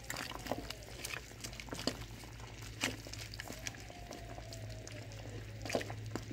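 Wooden spoon stirring a simmering pot of meat and dry fish in an enamelled pot, with scattered knocks of the spoon against the pot over a low steady hum. A faint drawn-out whine rises and falls in the background about halfway through.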